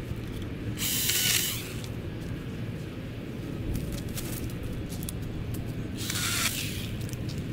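Vines and leaves being pulled and cut away from a tree trunk: two short rustling bursts, about a second in and near the end, with a few sharp snips from hand pruners, over a steady low rumble.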